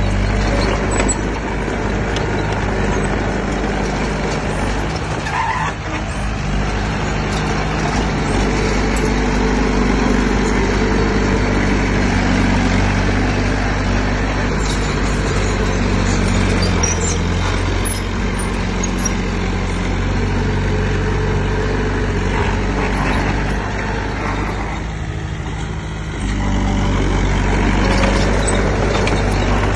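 Heavy-equipment diesel engine running under load, its pitch shifting as it works. It eases off briefly about twenty-five seconds in, then picks up again.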